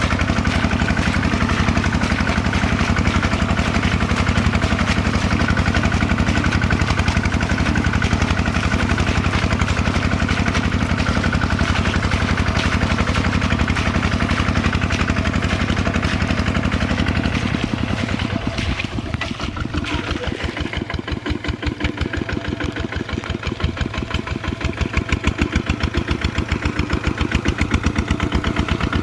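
Kubota RT140 walking tractor's single-cylinder diesel engine running steadily. About two-thirds of the way in it slows to a quieter, lower chug with each firing stroke distinct, then picks up again near the end.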